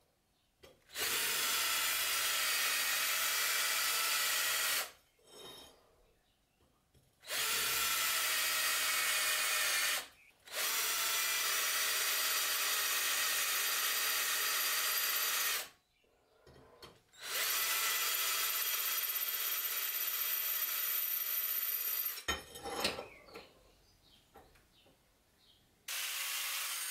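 Electric drill boring holes through a steel file blank with a twist bit, in four runs of a few seconds each with short pauses between. Near the end an angle grinder starts up.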